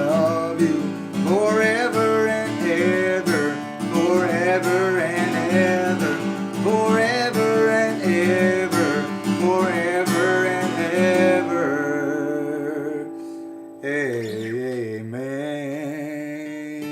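Country music: strummed acoustic guitar chords under a wavering lead melody line, thinning out after about twelve seconds and fading slowly as the song ends.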